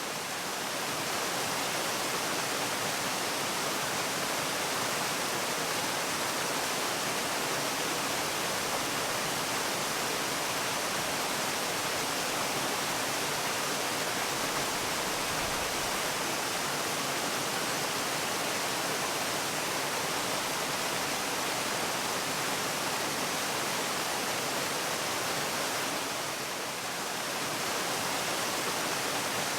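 Waterfall: water falling in a steady, even rush, mostly hiss with little low rumble, dipping slightly for a moment near the end.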